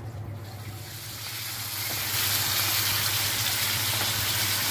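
Hot oil in a kadai sizzling as ground masala is spooned into it; the sizzle builds from about a second in, jumps louder about two seconds in and then holds steady.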